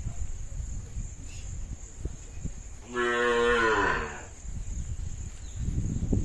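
A cow moos once, about three seconds in: a single call of just over a second that drops in pitch at the end.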